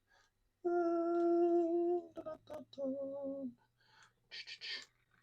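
A man humming two steady held notes: the first about a second and a half long, the second shorter and lower, with a short word between them and a brief hiss near the end.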